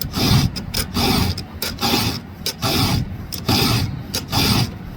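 A chainsaw chain being sharpened with a hand file: rasping strokes of the file across the cutters, about two a second, steady and even.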